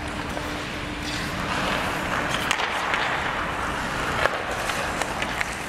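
Ice hockey skates scraping and carving on the ice during play, with a few sharp clacks of sticks and puck, the loudest a little past four seconds in.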